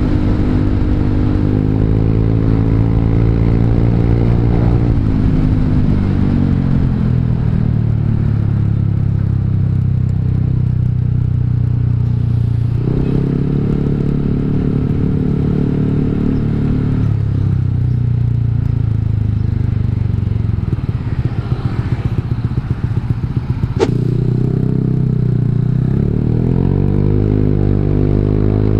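Honda Vario 150 scooter's single-cylinder engine through an R9 Alpha exhaust with the dB killer removed, riding and repeatedly opening and closing the throttle. The pitch rises at the start, falls back, climbs again about halfway through, and rises once more near the end. A rapid fluttering pulse comes a little after two-thirds of the way, followed by one sharp click.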